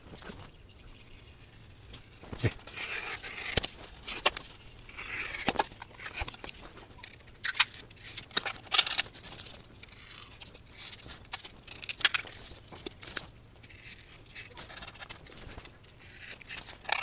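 Hobby knife scoring and cutting through foam core board: irregular scratchy strokes of the blade with many sharp clicks and crackles.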